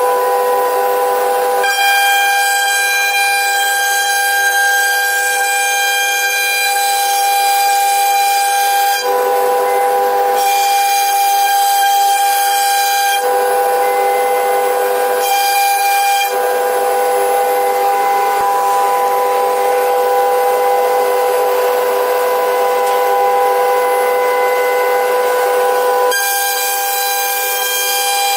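CNC router spindle running with a steady whine of several tones over a hiss as it carves wood. A harsher, higher cutting noise comes and goes every few seconds.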